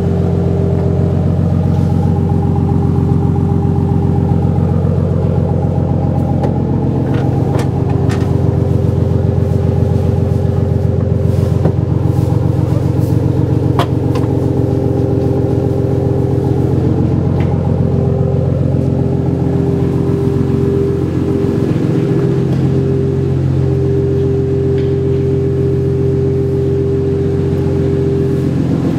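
Car engine idling steadily at an unchanging pitch, with a few sharp clicks from work on the car.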